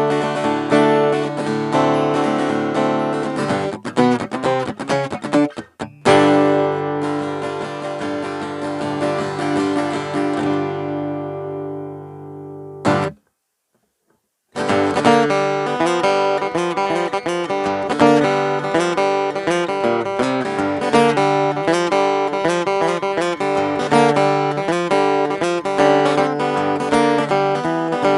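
Cort AD810 OP acoustic guitar being played, mixing picked notes and strummed chords. About six seconds in, a chord is struck and left to ring out and fade. After a brief gap of silence, rhythmic strumming and picking resumes.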